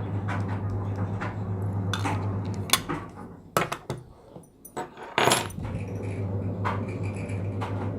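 A series of sharp clicks and clinks from hard objects being handled, over a steady low hum. The hum drops out briefly midway, and a cluster of louder clicks follows.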